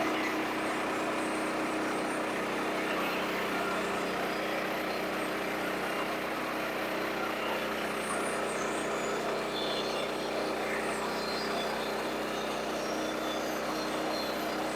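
A sawmill running steadily with an even motor hum, without change.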